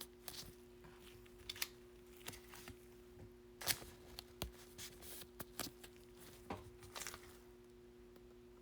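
Faint, scattered clicks and rustles of trading cards being handled and slid into protective plastic sleeves and holders, over a faint steady hum.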